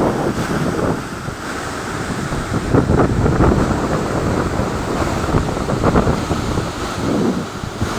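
Reservoir water washing and splashing in repeated surges, with wind buffeting the microphone as a low rumble.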